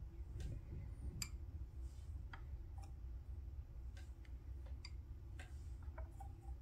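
Light, irregular clicks and ticks, about eight of them, of a small hand tool at the metal pan of an electronic powder scale as kernels of rifle powder are picked out to trim an overweight charge down to 27.5 grains. A steady low hum runs underneath.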